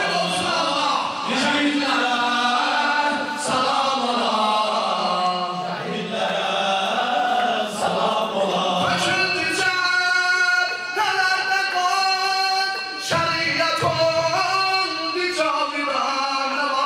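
Men singing a Shia religious chant (mersiyye) through microphones, with several male voices heard together.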